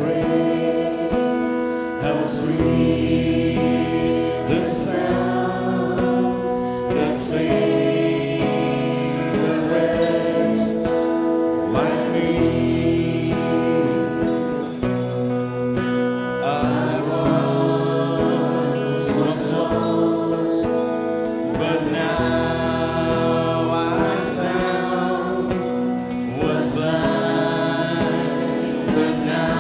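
Live Christian worship band playing a slow gospel song: a male lead singer with female backing singers, over bass, electric and acoustic guitars.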